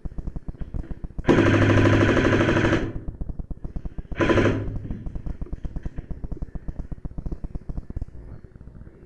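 Airsoft electric gun firing full-auto, close by: a burst of about a second and a half, then a short burst about a second and a half later.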